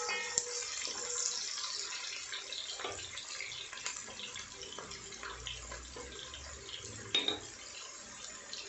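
Chopped shallots and green chillies sizzling in hot oil in a pot while being sautéed: a steady frying hiss with scattered crackles and pops. A spoon briefly stirs the pan at the start.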